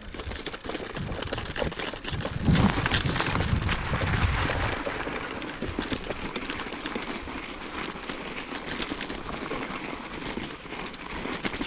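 Mountain bike tyres rolling over grass and then loose gravel and stones, a steady crackling crunch with many small clicks, heavier and louder for a couple of seconds a few seconds in.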